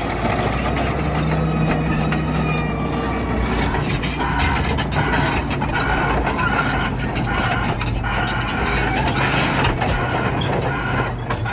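Heavy equipment diesel engine running steadily. From about four seconds in, a high-pitched beep repeats at an even pace.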